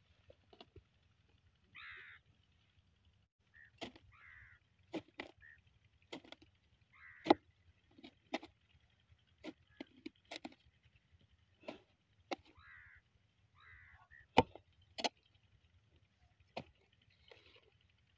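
Short-handled digging hoe chopping into dry, stony soil in irregular strikes, about a dozen, the loudest a little past the middle. Crows caw several times in the background.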